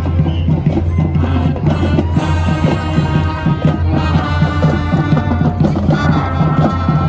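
Music with drums and pitched melody instruments playing continuously.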